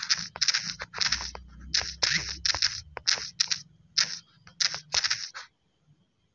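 Typing on a smartphone's on-screen keyboard: short, irregular taps at a few per second, stopping about five and a half seconds in.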